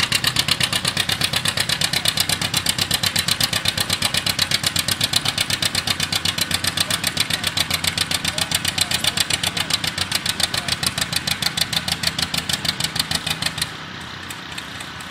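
John Deere 60's two-cylinder engine popping hard under full load while pulling a sled, a rapid even beat of exhaust pops, about eight a second, slowing slightly as it lugs down. The popping stops abruptly near the end.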